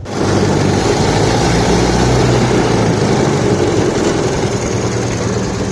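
1928 Ford Model A's four-cylinder flathead engine running steadily with an even low drone.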